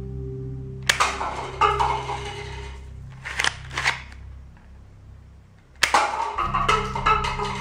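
Cardboard toy pistol firing twice with a sharp snap, each shot followed by light plastic cups clattering as they are knocked over. Between the shots come two clicks as the cardboard slide is racked. Background music runs underneath.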